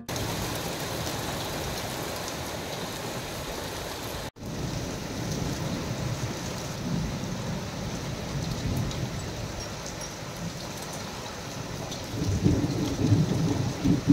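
Steady rain falling on a tiled terrace, with low rumbles of thunder near the end. The rain sound is broken once, a little over four seconds in, by a short silent gap.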